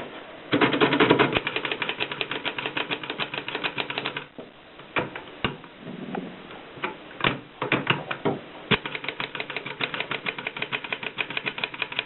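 Erika S manual portable typewriter being typed on: fast runs of key strikes, slowing to a handful of separate strikes around the middle, then a fast run again.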